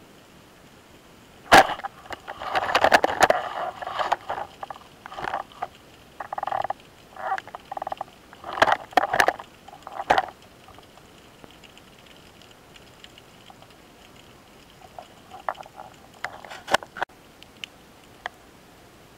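Underwater clicks and knocks from a spearfisher's speargun and gear: a sharp snap about a second and a half in, then bursts of clattering and knocking for several seconds, and a few more clicks near the end.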